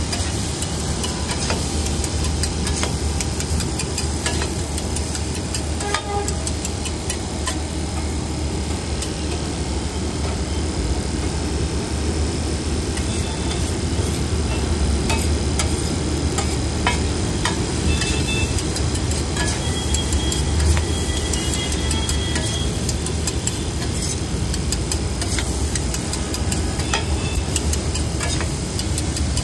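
Chow mein noodles and vegetables stir-fried on a large flat iron griddle: a metal spatula and tongs scrape and clink against the griddle many times over a frying sizzle and a steady low hum.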